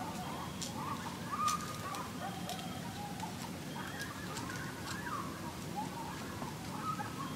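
Birds calling in the distance: many short, wavering calls overlapping throughout, with a few sharp clicks or snaps here and there over a low outdoor background rumble.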